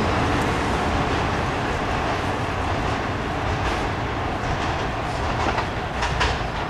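Siemens SD-160 light rail train pulling out of an underground station, its running rumble slowly fading as it moves off down the tunnel. A few sharp clicks from the wheels on the rails near the end.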